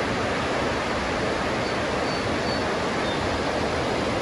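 Rushing river rapids: a steady, even hiss of fast white water.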